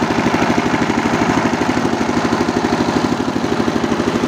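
Horizontal single-cylinder diesel engine of a generator set running steadily with a rapid, even beat, driving the dynamo that powers a sound system.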